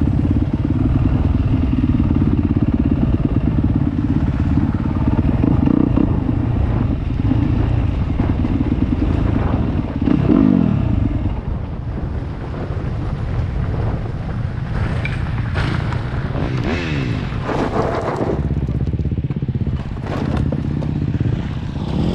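Dirt bike engine running under way on a gravel trail, with tyres crunching on loose stones. About ten seconds in, the engine note falls and the sound gets quieter. After that it runs lower, with a few rises and falls in revs.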